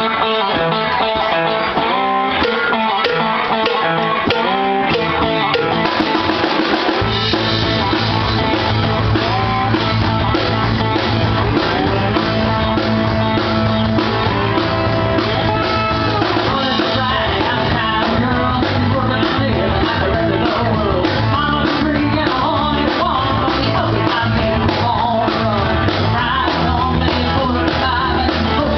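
A live rock band plays through PA speakers: electric and acoustic guitars, bass guitar and drum kit. It opens with guitars only, and the bass and drums come in about seven seconds in.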